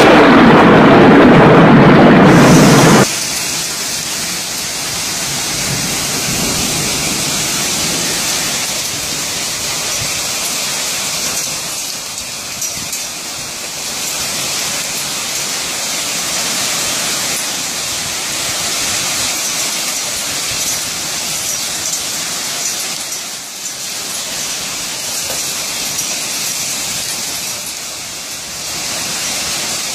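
Loud thunder for about three seconds, cut off abruptly, then a heavy downpour of rain as a steady hiss.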